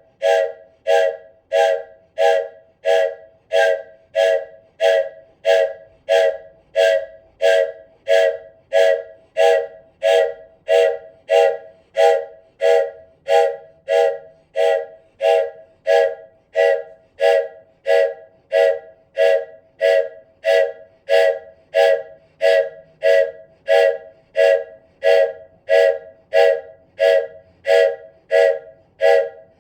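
Wooden toy train whistle blown in short, evenly repeated toots, about three every two seconds, each toot several notes sounding together like a train chord.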